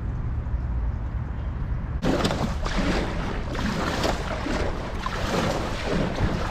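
Wind buffeting the microphone: a low rumble at first, then, about two seconds in, it turns abruptly into louder, crackling gusts.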